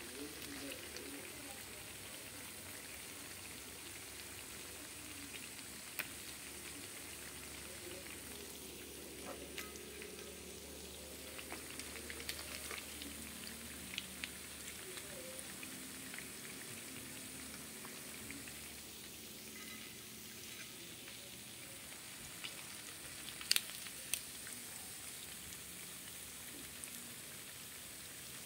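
Hot oil sizzling steadily around whole Indian mackerel (ikan kembung) frying in a pan. A few sharp clicks of metal tongs against the pan can be heard; the loudest comes about three-quarters of the way through.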